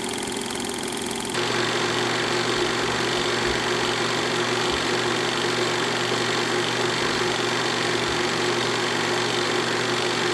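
Reel-to-reel film projector running: a steady mechanical whir and rattle that gets louder and gains a low hum about a second and a half in.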